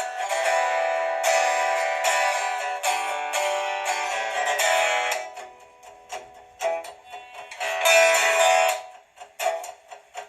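Guitar instrumental break: strummed chords for about five seconds, then sparser picked notes with one more loud strum about eight seconds in.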